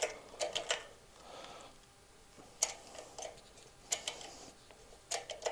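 Light metallic clicks and ticks in four irregular clusters as a needle-roller cam bearing is pressed into the aluminium cam case of a 1972 Harley-Davidson XLCH Ironhead engine with an arbor press.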